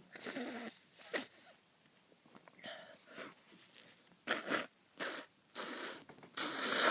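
A person sneezing and sniffing in a sneezy spell: a string of short, sharp bursts of breath, the loudest building up and cutting off sharply near the end.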